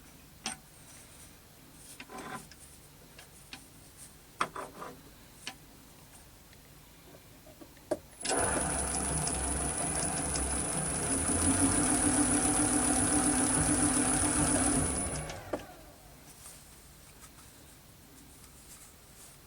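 A few scattered clicks and knocks, then a small electric motor that starts abruptly about eight seconds in. It runs for about seven seconds with a steady high whine on top and winds down.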